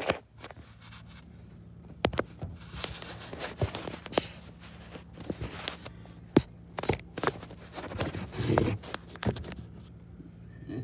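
Irregular knocks, clicks and scrapes of footsteps and a phone being handled and moved around, over a faint steady low hum, with a longer scraping rustle about eight seconds in.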